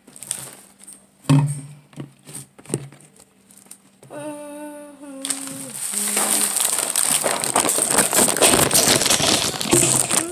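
Plastic snack bag crinkling as it is handled, a loud dense crackle starting about six seconds in. Before it, a few scattered clicks and a brief hummed note from a voice.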